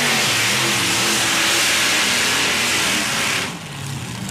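Supercharged engines of a modified pulling tractor at full throttle dragging a weight-transfer sled. A loud, sustained engine sound with wavering pitch, which falls away sharply about three and a half seconds in.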